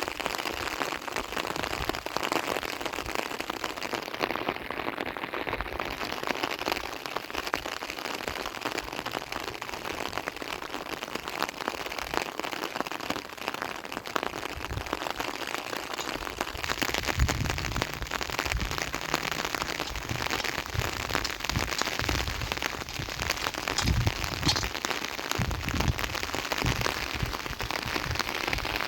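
Rain falling steadily, a dense patter of drops. From a little past halfway, low thumps come and go over it.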